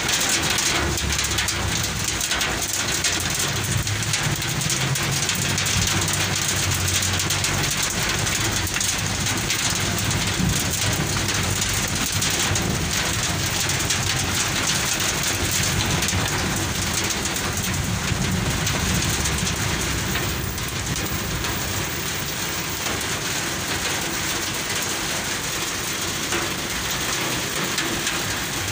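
Heavy rain pouring onto a wet street, a steady hiss with a low rumble underneath.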